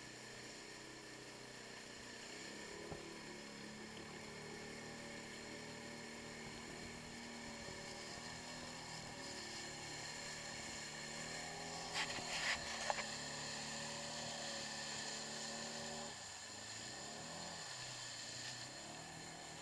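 Arctic Cat 700 ATV engine running hard under load as the wheels spin in deep mud. Its pitch holds high, drops about three-quarters of the way through, then climbs again. A quick cluster of sharp knocks a little past the middle is the loudest thing.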